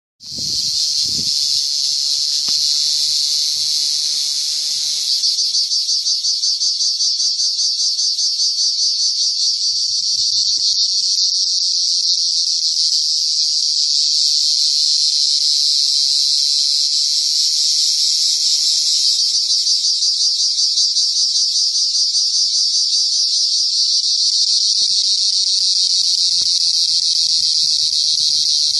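Cricket singing close up: a loud, continuous high-pitched trill made of very rapid pulses, holding steady throughout.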